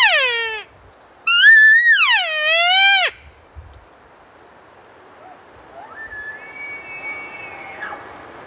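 Elk calls close by: a short call sliding steeply down in pitch, then a longer call that rises, holds high and falls away. About six seconds in, a fainter high whistle holds for about two seconds, a more distant bull elk bugling.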